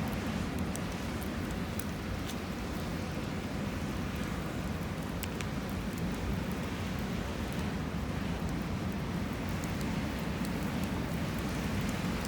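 Wood campfire crackling, with scattered sharp pops and snaps over a steady low rushing noise.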